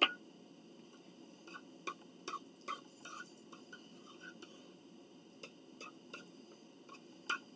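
Quiet eating sounds: a fork clicking and tapping against dishes in scattered, irregular small clicks, the sharpest one at the very start and another near the end.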